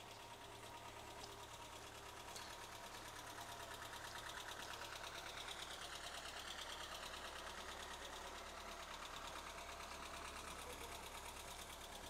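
A faint idling engine with a fast, even clatter, getting a little louder around the middle.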